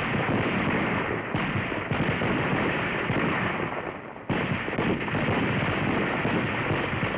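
Squad of .30 caliber M1 semi-automatic rifles firing, the shots running together into a dense, continuous crackle on an old film soundtrack. The sound fades briefly, then cuts back in abruptly about four seconds in.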